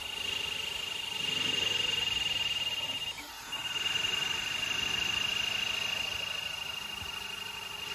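Voron 2.4 3D printer with an all-wheel-drive gantry printing at high speed: a steady high-pitched whine over the rushing whir of the fast-moving toolhead, which swells and eases as it moves. The whine breaks off briefly a little over three seconds in.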